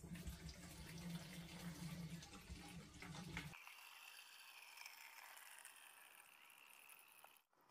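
Gasoline pouring from a large plastic gas can's spout into a small plastic gas can, a faint steady trickle of liquid filling the can. About halfway through, the low part of the sound drops away and leaves a thinner, higher hiss.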